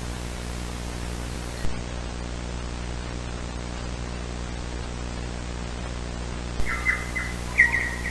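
Steady static hiss over a low hum, with a single click about two seconds in. Near the end comes a short run of bird-like chirps.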